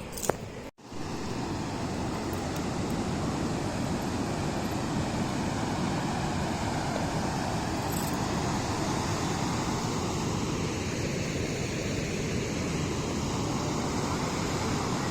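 Steady rushing noise of Duduma waterfall's falling water, starting just under a second in after a brief cut.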